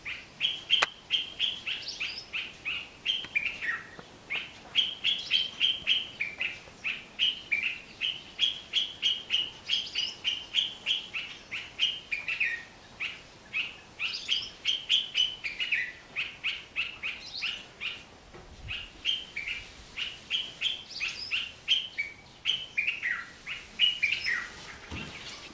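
Male dark-capped bulbul singing to attract a female: a steady run of short, bright chirping notes, about four or five a second, in repeated phrases that now and then end with a falling note. The song stops near the end.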